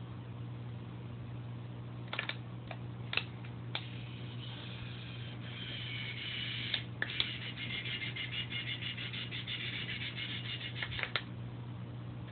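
Steady low hum of aquarium equipment, with a few sharp clicks and, from about four seconds in until about eleven, a higher fluttering whir.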